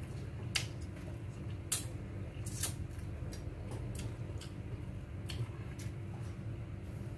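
A person eating: scattered sharp clicks and smacks of chewing and handling food, the strongest in the first few seconds, over a steady low hum.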